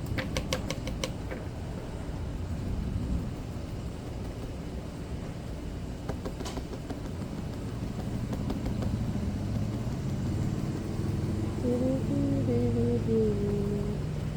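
A motor vehicle, such as a golf cart, going by: a low engine rumble that grows louder over the second half, with a wavering pitched hum near the end.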